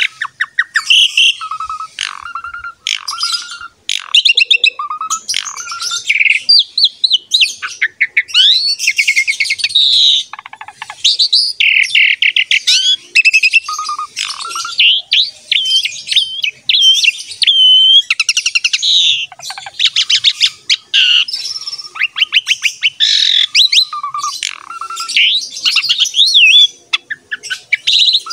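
Asian pied starling (jalak suren) singing continuously: a long, varied stream of clear gliding whistles mixed with fast raspy chatter and short repeated phrases.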